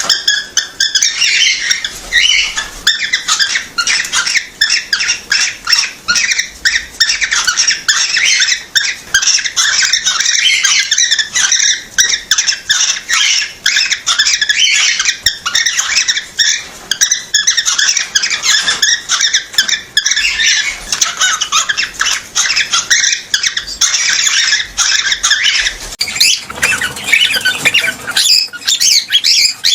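Cockatiel chattering and chirping nonstop in rapid, high-pitched notes. The uploader presents this as a male's mating call that makes a female take the mating position.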